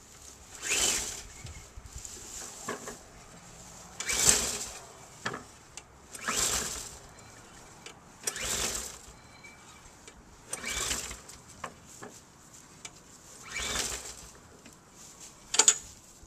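Lawn mower's recoil starter cord pulled about seven times, roughly every two seconds, each pull a short whirring rush, with the engine not catching: the fuel tank has been drained and only what is left in the carburetor remains.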